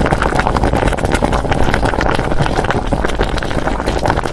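Pot of beef short-rib broth at a rolling boil, bubbling loudly and continuously with rapid irregular pops.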